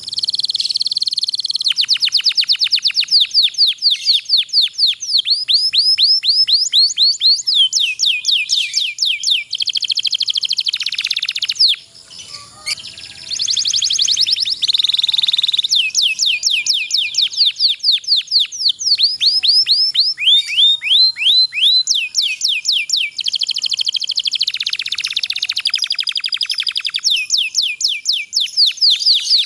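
Domestic canary singing long rolling trills. It gives fast runs of rapidly repeated high, downward-sweeping notes, and the pace changes from phrase to phrase. The song dips briefly about twelve seconds in.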